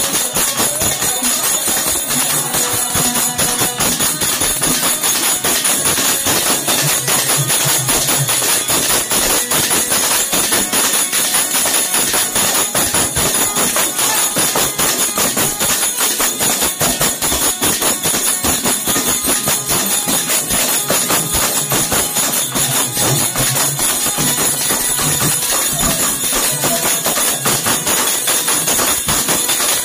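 Bhajan percussion: small hand cymbals and tambourine-style frame drums played together in a fast, steady rhythm, a dense continuous jingling and clashing.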